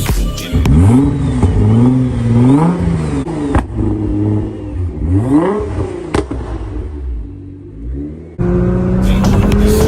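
Nissan GT-R's twin-turbo V6 revved in two sweeping blips a few seconds apart, pitch climbing and falling back each time. About eight seconds in, the sound cuts abruptly to a steadily rising engine note under acceleration, with a music beat coming back in.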